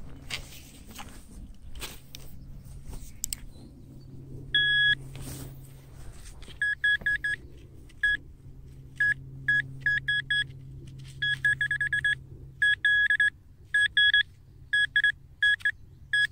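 Handheld metal-detecting pinpointer probing loose soil, sounding a high electronic beep in repeated bursts, some held and some pulsing rapidly, signalling buried metal close to its tip. A few seconds of scraping and clicking in the dirt come before the beeping.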